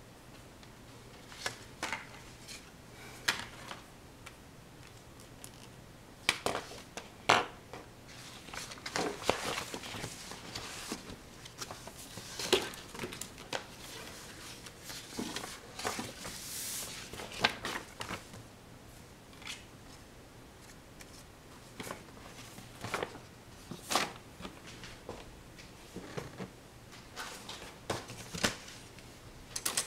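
Irregular small clicks, taps and rustles of things being handled in a small room, with a few sharper knocks scattered through.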